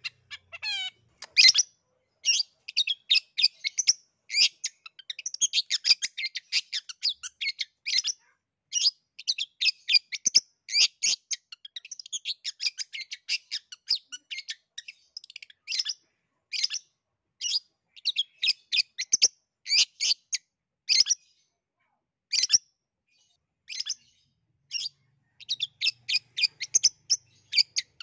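Long-tailed shrike (cendet) singing: a fast, varied run of short, sharp chattering notes in bursts with brief pauses, and a quick falling whistle about a second in.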